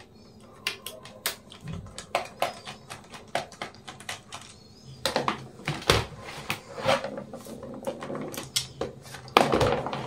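Irregular small clicks and taps of plastic and metal laptop parts and a screwdriver being handled during disassembly. They grow busier about halfway through, with the loudest clatter near the end.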